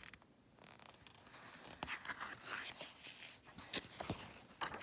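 Pages of a glossy picture book being handled and turned: paper rustling and sliding, with small ticks and a sharp click at the start.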